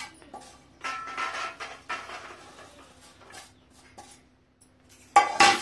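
A wooden spatula scrapes roasted peanuts and spice powder out of a frying pan onto a steel plate, in scraping bouts with small clinks. A sharp knock comes near the end.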